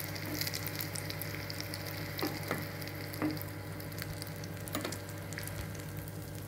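Egg and sweet potato leaf omelette frying in a pan, sizzling steadily with a few sharp clicks and pops scattered through.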